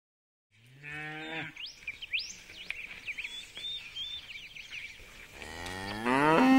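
Cow mooing twice, a short moo about a second in and a longer, louder moo that rises and is held near the end.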